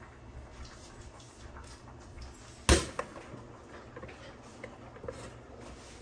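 Pop-up toaster finishing its cycle: the spring-loaded carriage releases and the toast pops up with one sharp click about two and a half seconds in, followed by a fainter click.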